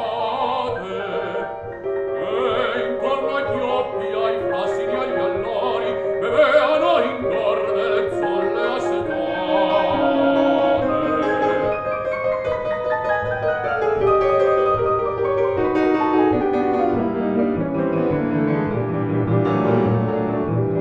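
A baritone sings with piano accompaniment in classical art song. About halfway through, the voice stops and the piano goes on alone with a falling, stepwise run of notes.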